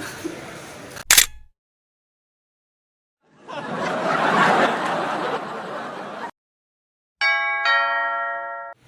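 A sharp click about a second in, then a burst of crowd noise about three seconds long, then a multi-tone 'telolet' bus horn sounding two chords in quick succession near the end.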